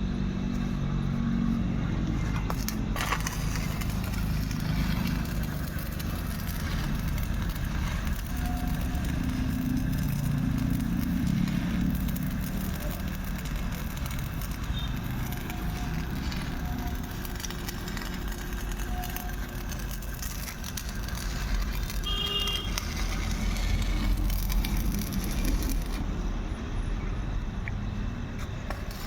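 Electric arc welding crackling and hissing steadily, over a continuous low engine-like rumble.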